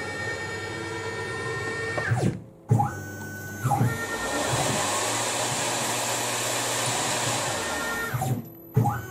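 Tormach RapidTurn CNC lathe running under program with a steady spindle whine. About two seconds in and again near the end, the whine falls away as the spindle winds down to a brief stop, then rises again as it speeds back up. A hiss joins the whine in the middle.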